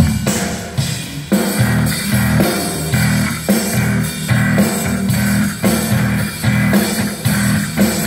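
Rock band sound-checking through an outdoor concert PA: drums and a heavy, low electric guitar riff come in together right at the start, with drum hits falling about twice a second.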